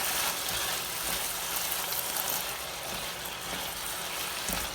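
Marinated chicken frying in butter in a pan, a steady sizzling hiss, with a soft low knock near the end.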